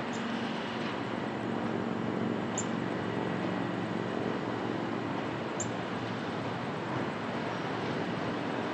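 Diesel locomotive approaching at low speed, its engine running with a steady drone that grows a little louder as it nears. Faint short high chirps sound three times.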